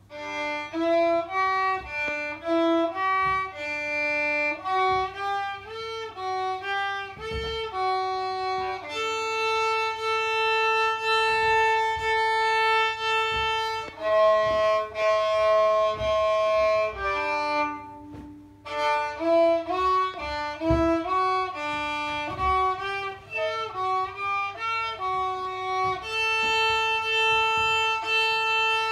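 Solo violin played by a child: a short carillon piece, runs of quick short notes alternating with long held notes, with a brief break about eighteen seconds in.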